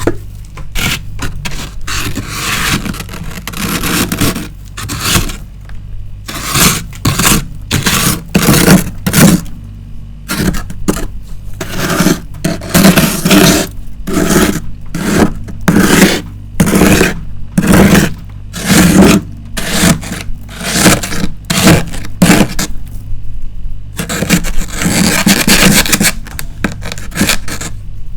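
Frost being scraped off the inside of a freezer in a long run of quick, short, gritty strokes, with a brief pause near the end.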